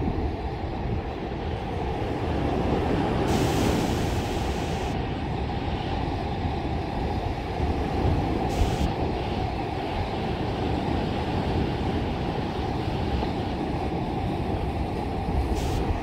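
Small surf breaking and washing up a sandy beach: a steady low rumble of waves with wind buffeting the microphone, and a few brief bursts of hiss, the longest about three to five seconds in.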